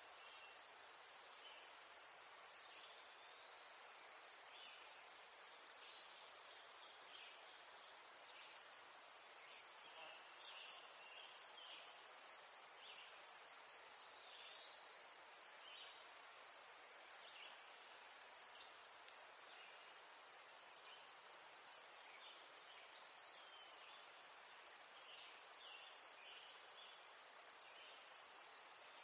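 Insects trilling in the grass: a steady, high-pitched, rapidly pulsing chorus that runs without a break, with faint short chirps scattered over it.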